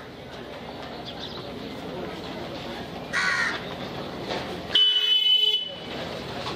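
A crow caws once, harshly, about three seconds in, over a low street hubbub. Near the end a louder, shrill, steady tone sounds for about a second.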